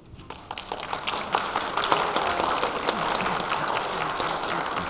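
Audience clapping. The applause starts suddenly, builds over the first second, then keeps up steadily.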